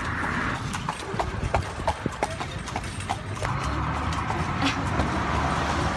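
A horse's hooves clip-clopping on the paved street as it pulls a carriage, a steady beat of about three hoofbeats a second.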